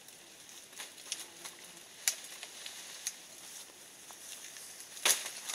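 Scattered crackles and sharp snaps of twigs, leaves and vines being disturbed in brush, with the loudest snap about five seconds in.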